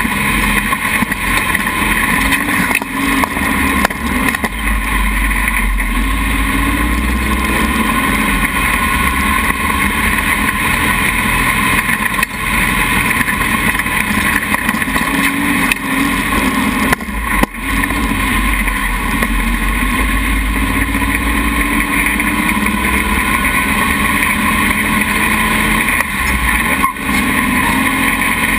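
Dune buggy engine running under load while driving over sand, its pitch rising and falling with the throttle. The engine note drops away briefly twice, past the midpoint and near the end.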